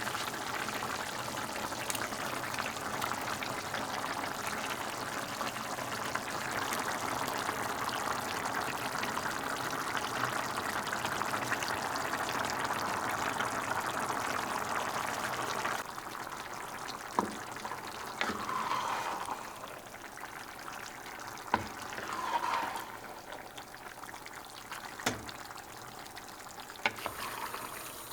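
Liquid cooking in a pan of minced-meat tomato sauce: a steady sizzling, bubbling hiss that drops away suddenly about sixteen seconds in. After it come a few sharp clicks and knocks of a utensil against the pan.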